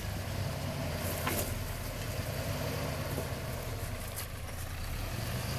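Off-road 4x4's engine running steadily at low revs, a low even drone, while the vehicle crawls slowly over rocks.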